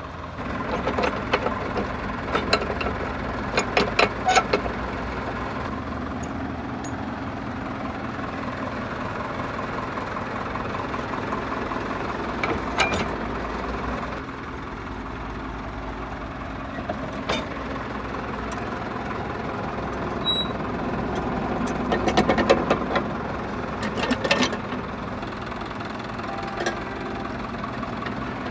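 Heavy machinery's diesel engine running steadily, with scattered sharp knocks and clatters, thickest in the first few seconds and again about two-thirds of the way through.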